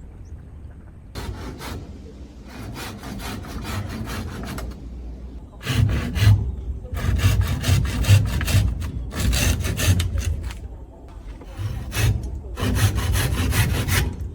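Hand saw cutting through wood in bursts of quick back-and-forth strokes, with short pauses between the bursts.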